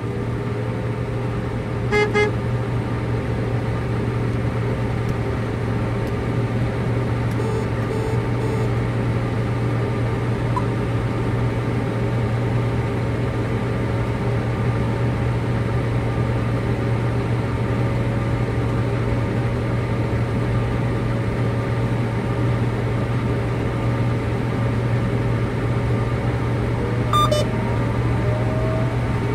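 Steady diesel engine drone of cotton-harvesting machinery, with a short beep about two seconds in and another near the end.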